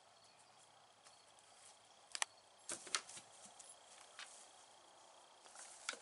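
A few sharp taps and rustles, the loudest about three seconds in, over a faint, steady, high insect trill.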